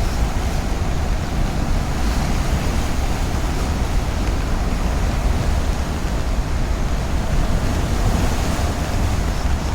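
Steady rush of a river in heavy flood, loud and even throughout, with wind buffeting the microphone.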